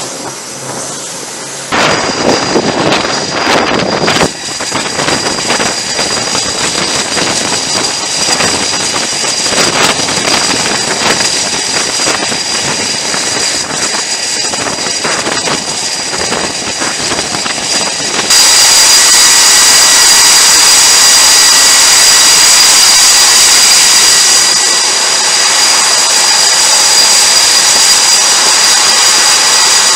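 Twin General Electric F414 turbofans of a Super Hornet-family jet running close by on a carrier flight deck. At first a rough, fluttering roar. After a cut about 18 seconds in comes a louder, steady, high-pitched turbine whine.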